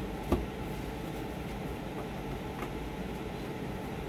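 Steady room hum with one sharp knock about a third of a second in and a couple of faint ticks later.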